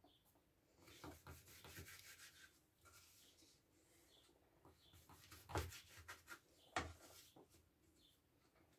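Faint scraping of a knife sawing through a rolled stack of thin dough sheets on a plastic cutting board. Two sharper knocks of the blade striking the board come a little past halfway.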